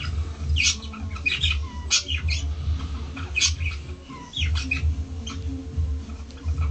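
Repeated short, high-pitched squeaks from a small animal, over a steady low hum.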